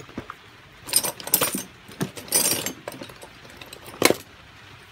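Kyoritsu chainsaw being handled on a workbench: a string of plastic-and-metal clatters and rattles, then one sharp knock about four seconds in as it is set down.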